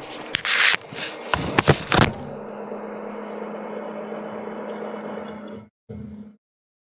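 Sharp knocks and clatter of equipment being handled, then from about two seconds in a steady low hum: an overhead projector's fan running after being switched on.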